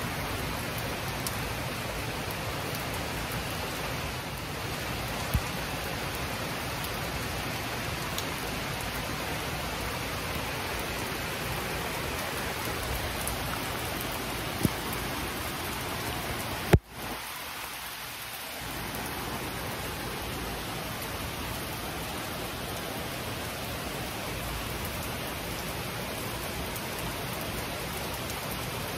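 Heavy rain pouring steadily onto a wooden deck and leafy trees, an even hiss. About two-thirds of the way through there is one sharp crack, after which the rain sound briefly drops away before returning.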